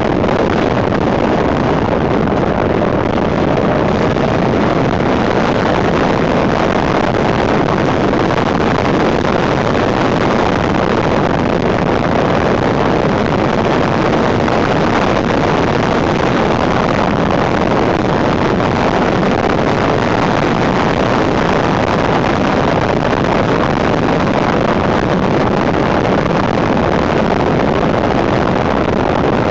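Steady wind rushing over a handlebar-mounted camera's microphone on a moving motorcycle, with the 1991 Suzuki GSX750F Katana's inline-four engine running underneath at a steady cruise.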